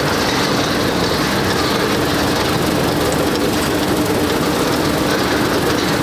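Combine harvester running with a MacDon flex draper header cutting standing wheat: a loud, steady machine noise with a constant low hum.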